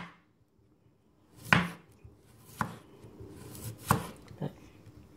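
A freshly sharpened kitchen knife slicing a cucumber on a wooden chopping board: about five slow, unevenly spaced knocks as the blade goes through and hits the board, roughly a second apart. The blade cuts easily.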